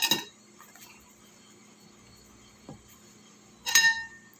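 Two clinks of a dish being knocked while eggs are put into a coating of corn flour, one at the start and a louder one near the end that rings briefly.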